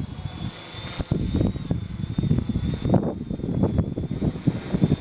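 Wind buffeting the microphone in uneven gusts over the faint buzz of a Gaui 330X-S electric quadcopter's motors and propellers flying overhead.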